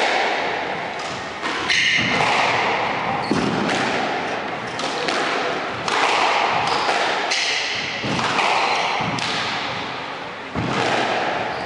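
Squash rally: the rubber ball cracking off rackets and thudding against the walls and glass back wall at an irregular pace, each hit echoing around the court, with players' footsteps and brief shoe squeaks on the wooden floor.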